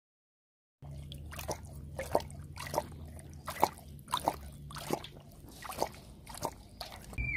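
A tiger lapping water from a metal bowl: its tongue splashes into the water in a steady rhythm of about one and a half laps a second. The sound starts abruptly about a second in.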